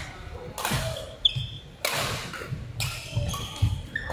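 Badminton rally: the shuttlecock is struck by rackets about once a second, sharp smacks that ring out in a large sports hall, with a short shoe squeak on the court floor about a second in.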